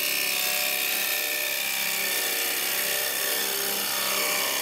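Carbide cup cutter of a Mate turning tool cutting across the face of spinning ash wood on a running lathe: a steady hiss of the cut as shavings come off in one controlled sweep.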